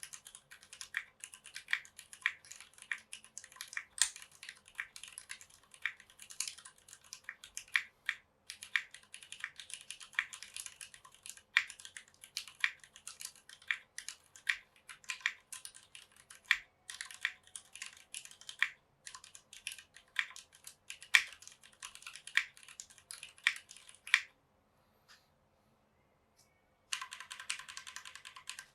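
Typing on a Tofu60 acrylic-case mechanical keyboard with stock Cherry MX Black linear switches, an O-ring faux gasket mount and GMK keycaps: a fast, irregular clatter of keystrokes. The typing stops for about three seconds near the end, then comes back as a dense, rapid clatter.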